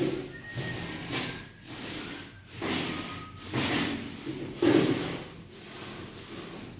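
Plastic bag rustling and rubbing against a small stainless steel pedal bin as it is handled inside the bin, in irregular strokes about every half second to a second.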